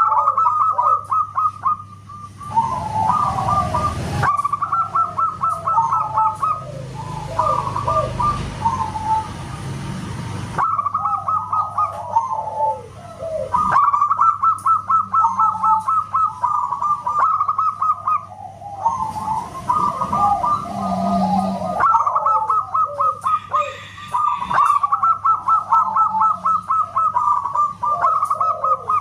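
Zebra doves (perkutut) cooing loudly in repeated rapid, trilled phrases, several birds overlapping, in bouts with short pauses between. A low rumbling noise lies under the calls for the first third.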